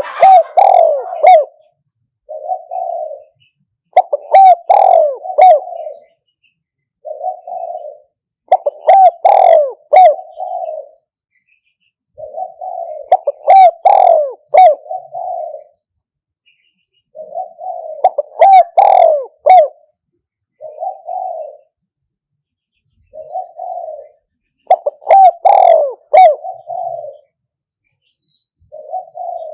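Spotted dove cooing: a loud phrase of several coos repeats every four to five seconds, with a single softer coo between phrases. It is the calling pattern played to lure wild spotted doves to a decoy trap.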